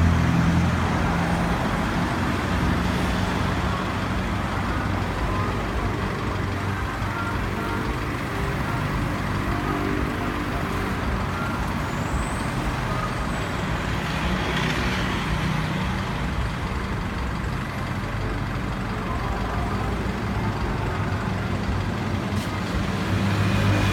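Truck engine running steadily, with a low even drone and no siren sounding.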